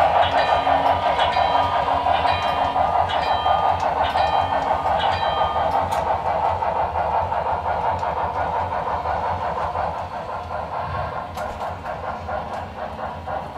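HO-scale Broadway Limited Texas & Pacific 2-10-4 steam locomotive running with its sound decoder, wheels clicking over the track, fading steadily as the train moves away. A crossing bell dings about twice a second until about halfway, then stops.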